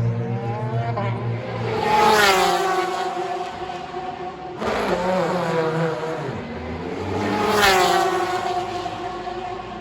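Endurance race cars passing by at speed one after another, each engine note dropping in pitch as it goes past. The two loudest passes come about two seconds in and near the end, with another car arriving in between.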